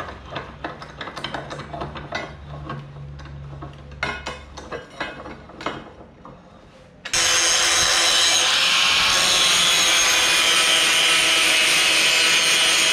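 Clicks and knocks as a steel sheet is handled and clamped in a bench vise. About seven seconds in, an angle grinder starts abruptly and runs loud and steady, its disc grinding into the steel sheet.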